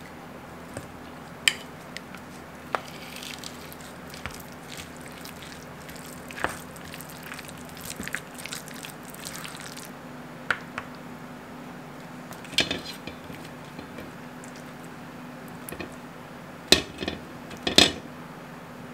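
A wooden spoon tapping and scraping against a stainless steel mixing bowl and a small glass bowl as food is stirred and spooned out: scattered light clinks and knocks, the loudest two near the end, over a steady low hum.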